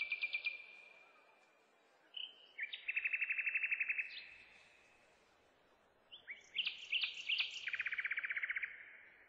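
A songbird singing in short phrases, each a fast trill of repeated notes. One phrase fades out just after the start, a second comes about two seconds in, and a third about six seconds in.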